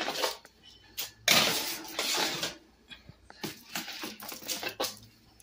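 Foil-lined metal baking sheets being handled and slid into an oven: a rustling scrape lasting about a second, then several short clinks and knocks of metal.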